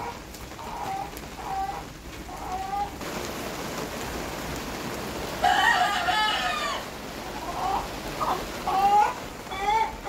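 Chickens clucking in short repeated calls, with a rooster crowing once, loud and long, about five and a half seconds in, over the steady patter of rain.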